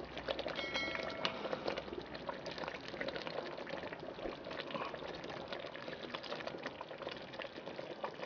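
Palm-oil tomato stew bubbling in a pot over a charcoal fire: a steady crackling simmer of many small pops.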